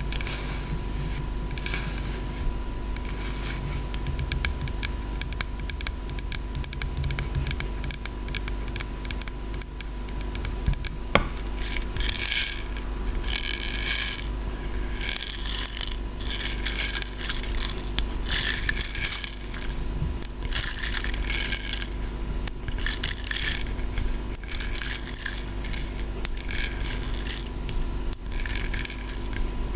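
ASMR tapping and scratching on small objects. First comes fine, rapid clicking; then, from about twelve seconds in, repeated scratching strokes that come and go about every second or two.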